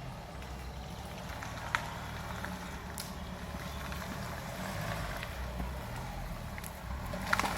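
An off-road 4x4's engine running steadily at low revs, with a couple of light knocks about two and three seconds in.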